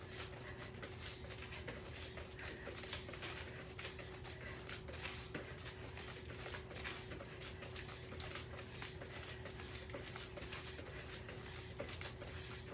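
Quick, uneven soft taps and thumps of hands and feet on the floor during plank jacks with shoulder and hip taps.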